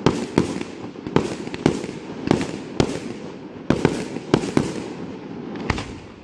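Aerial firework shells bursting, about ten sharp bangs at uneven intervals over a continuous din, easing off near the end.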